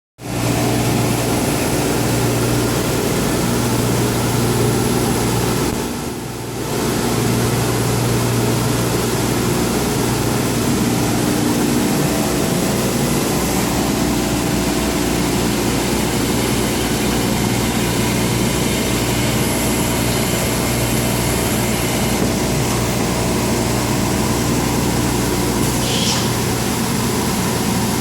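CNC router running: a steady mechanical drone with a few steady tones in it, dipping briefly in loudness about six seconds in, with a short faint tick near the end.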